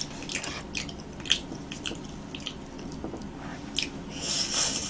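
Close-miked wet, squishy chewing and mouth clicks of someone eating soft roasted sweet potato. Near the end there is a louder, crackly stretch as another piece goes into the mouth.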